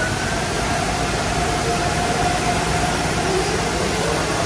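Tunnel car wash equipment running: spinning cloth brushes, water spray and machinery make a steady wash of noise, with a faint steady motor whine.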